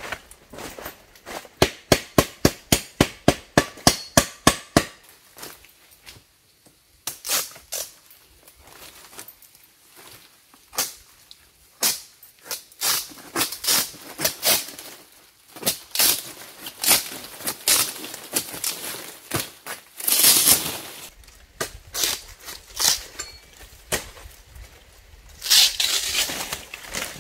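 Dry palm fronds rustling and crackling as they are handled and dragged, with a dense rustle about two-thirds of the way through. Near the start, a quick run of about a dozen sharp knocks, three or four a second, the loudest part.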